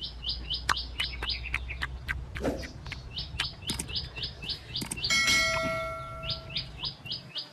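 A bird calling in runs of quick rising chirps, about five or six a second, with short pauses between runs. About five seconds in, a single bell-like ding rings out and fades over about a second, over scattered sharp clicks.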